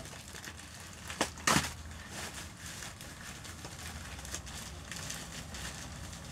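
Plastic packaging bag crinkling and crackling as it is handled and pulled open, with two loud crackles about a second and a half in.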